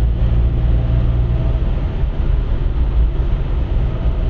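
Car driving steadily along a paved road: a continuous low rumble of engine and tyre noise.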